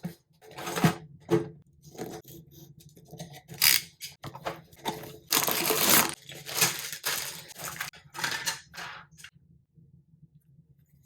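LEGO bricks and their packaging handled by hand: irregular crinkling, tearing and small plastic clicks and clatters, stopping about nine seconds in.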